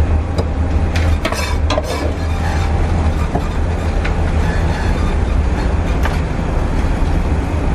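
Chinese cleaver chopping barbecued pork (char siu) on a wooden end-grain chopping block: a quick run of sharp knocks about a second in, then single lighter knocks now and then. A loud, steady low rumble runs underneath.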